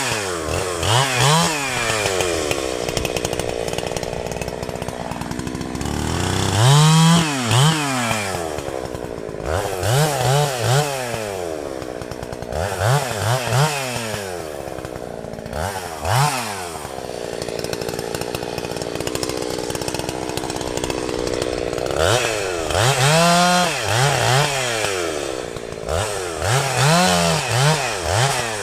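Two-stroke chainsaw revving up and down again and again while cutting trees, easing back toward idle between bursts of throttle, with longer low-revving stretches a few seconds in and again a little past the middle.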